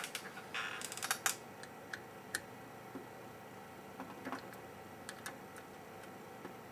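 Light clicks and ticks of an Allen wrench working the stencil screws on a metal BGA reballing jig: a quick cluster in the first second or so, then scattered single ticks.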